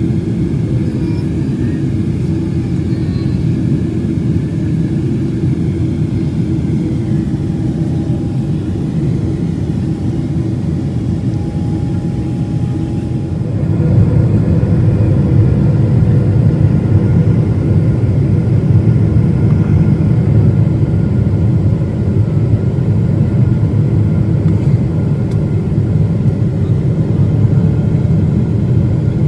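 Jet airliner engines and airflow heard inside the cabin: a steady low roar that grows louder about halfway through.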